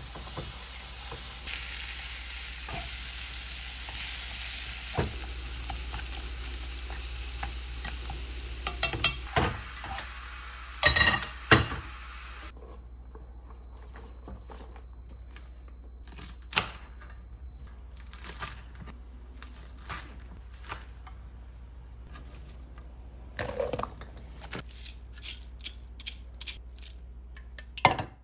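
Food sizzling as it fries in a pan, with a few clattering knocks near the middle; about twelve seconds in the sizzle stops, and scattered clicks and knocks of kitchen utensils and dishes follow.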